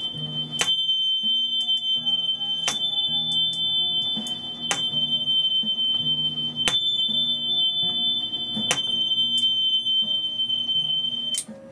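Tuning forks: a high steady ringing tone holds until it stops near the end, over lower changing tones. Sharp strikes come about every two seconds.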